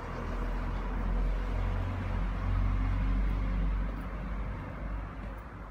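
Moto Guzzi V7 Sport's air-cooled 90-degree V-twin idling on its stand through twin chrome exhausts, a steady low exhaust note that rises and falls a little in loudness.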